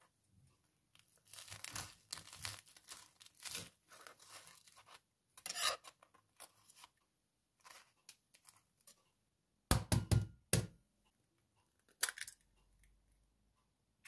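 A crisp toasted sandwich being cut with a knife on a wooden board: scraping, crunching strokes through the toast, then a quick run of loud knocks of the blade on the board about ten seconds in, and one more knock near the end.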